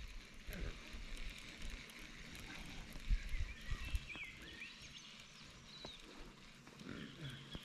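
Quiet riverside ambience: a faint steady hiss with a few short chirps in the middle, and a couple of soft low knocks about three and four seconds in.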